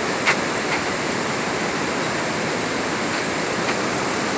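Steady roar of rushing water from Niagara Falls, an even wash of noise, with one brief click about a third of a second in.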